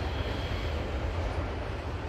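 Lead lash-up of GE diesel-electric freight locomotives (ES44AC and C40-8 units) running with a steady deep engine rumble, mixed with the rolling noise of freight trains on the rails.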